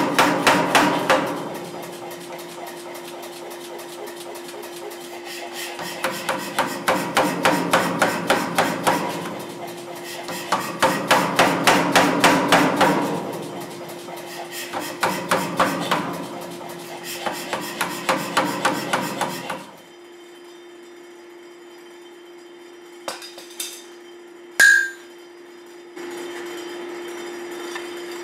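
Power hammer rapidly pounding a hot bar of W1 steel as a chopper blade is forged, in several strings of blows a few seconds long with short pauses between. The pounding stops about twenty seconds in, leaving a steady hum, a few light clanks and one sharp, ringing metal strike near the end.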